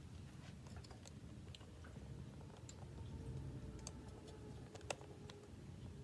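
Faint scattered light clicks and taps of things being handled, with one sharper click about five seconds in.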